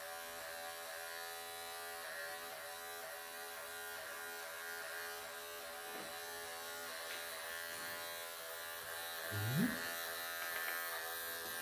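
Wahl electric pet clippers running with a steady buzzing hum as they shave through a Persian cat's matted, pelted coat. A short voice sound rising in pitch comes briefly about nine seconds in.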